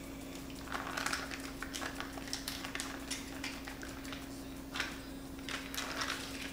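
Soft crinkling of a cream cheese brick's foil wrapper and a knife cutting through the block, in short scattered bursts, over a steady low hum.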